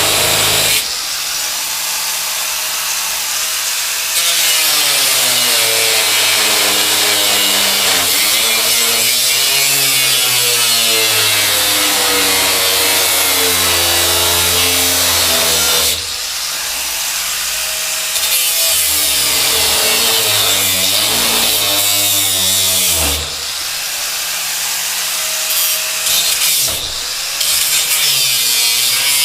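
A power tool cutting metal runs loud and continuously. Its motor pitch sags and recovers as it bites, and it eases off briefly a few times.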